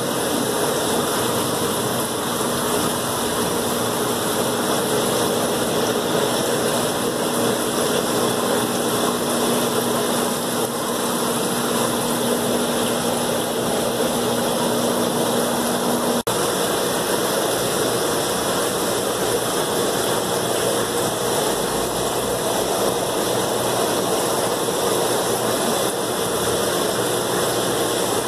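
Steady rushing and humming of aquarium filtration: pumps and water running through the tanks' plumbing. A low steady hum in it stops abruptly about halfway through.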